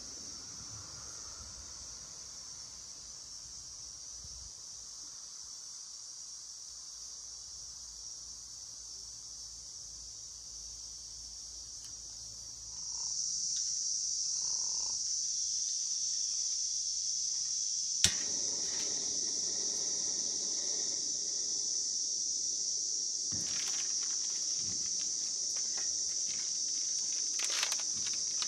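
A steady, high-pitched chorus of insects, which gets louder about halfway through. A single sharp click comes a few seconds later, and light handling clicks and rustles come near the end.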